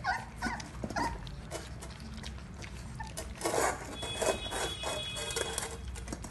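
Dalmatian puppies eating together from a steel bowl: wet lapping and chewing with clicks against the bowl, mixed with short puppy whimpers in the first second or so. The eating noises grow busier about halfway through.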